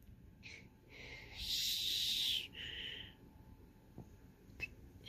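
A breathy hiss lasting about a second, like a person blowing out, followed by a shorter, fainter breath and a few faint taps near the end.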